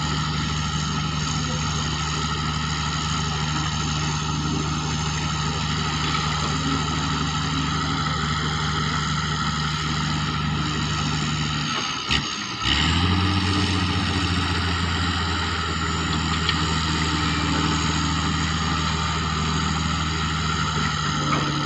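Diesel engines of a Sumitomo excavator, a Komatsu PC300 excavator and dump trucks running steadily while the excavators dig and load ore. A little over halfway through, the drone briefly drops out, then comes back slightly higher in pitch and louder.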